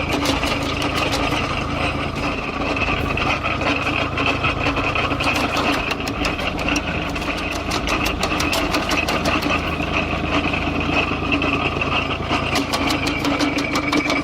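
Engine-driven firewood machine running steadily, with a constant hum and a rapid stream of clicks and knocks.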